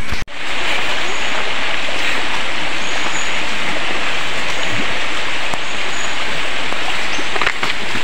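Shallow, rocky river flowing over stones: a steady, loud rush of water.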